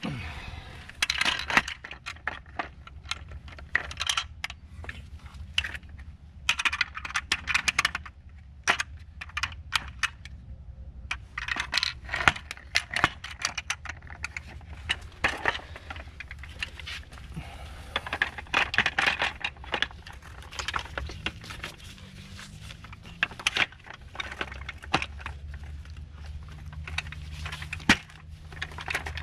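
Hard plastic parts of a C-Tug kayak cart clicking and clattering as its wheels and bumper pads are handled and snapped onto the frame, in irregular sharp clicks over a steady low hum.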